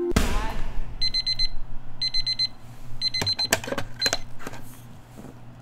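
A taekwondo kick slaps a handheld kick pad with one sharp impact. Then an electronic alarm clock beeps in four half-second bursts of rapid high beeps, about one a second, the last cut short, with a few clicks and knocks as a hand reaches for the clock.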